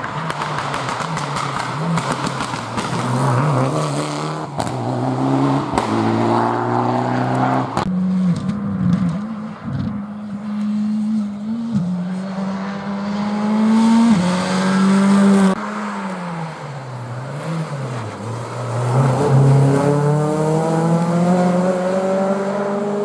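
Rally cars at speed on a tarmac stage, several in turn: engines revving hard, pitch climbing and dropping with each gear change and braking. The sound switches abruptly twice, near eight and near fifteen seconds in, as one car gives way to the next.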